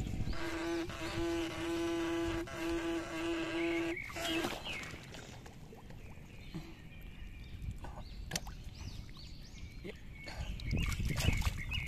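A steady buzz, held at one pitch and broken by a few short gaps, for about the first four seconds. After it, hands squelch and splash in mud and shallow muddy paddy water while digging.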